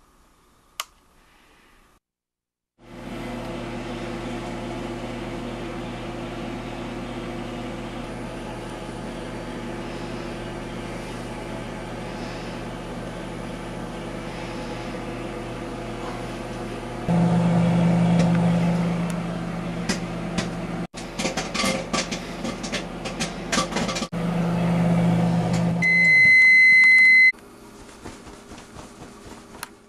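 Microwave oven running with a steady hum that grows louder partway through, a spell of irregular pops and crackles, then one long beep as it finishes.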